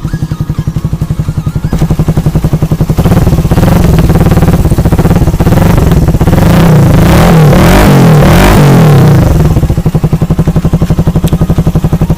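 Suzuki Raider 150's single-cylinder four-stroke engine through an aftermarket Akrapovic muffler, idling and then revved twice, the second rev higher and longer, before settling back to idle near the end.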